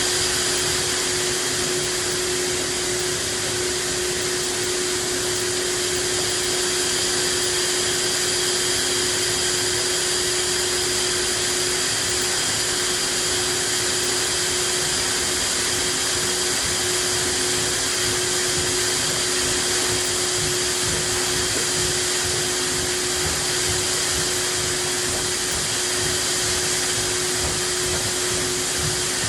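Farm machinery running steadily, heard from inside a cab: an unbroken drone with a constant hum and high, even whines, with no change in pace.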